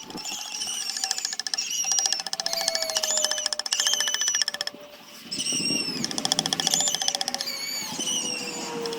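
A power woodworking tool cutting wood, running with a fast pulsing rattle and a high whine that rises and falls as it is loaded; it eases off briefly about five seconds in, then picks up again.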